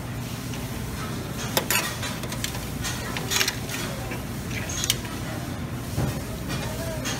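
Metal serving spoon scooping mussels and clams from a steel steam-table tray, with a handful of sharp clinks of metal against the pan and shells, over a steady low hum.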